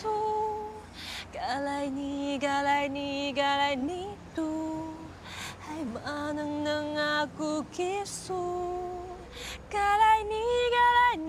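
A woman singing in long held notes that slide up and down into one another, phrase after phrase with short breaths between. She is loudest near the end.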